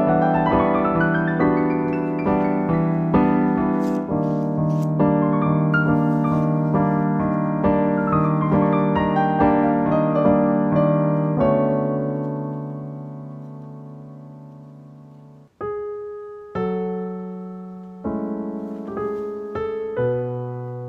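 Background piano music: flowing runs of notes over sustained chords, then a held chord dies away about three-quarters of the way through and a slower phrase of separate chords begins.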